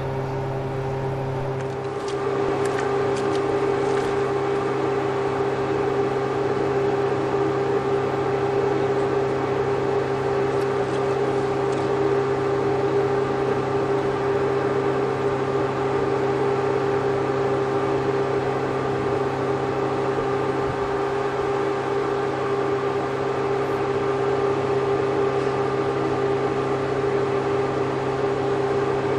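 A steady, unchanging mechanical hum with a fixed pitch, with a few faint ticks a couple of seconds in.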